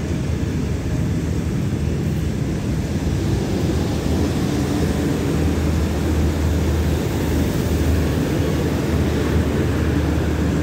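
State Railway of Thailand rapid train 167's passenger coaches rolling past the platform: a steady low rumble of wheels on rail with a droning hum.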